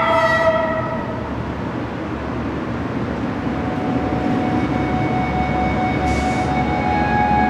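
Low, steady rumbling rush of air, film sound design, after a sustained chord dies away in the first second. A brief hiss comes about six seconds in, and thin steady high tones fade in over the second half.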